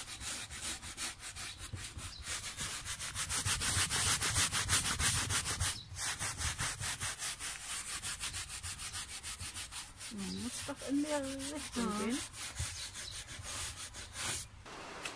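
Two bristle clothes brushes scrubbing back and forth over a heavy woven textile, in quick repeated strokes with a brief pause about halfway through. The old garment is being dry-brushed clean of dust.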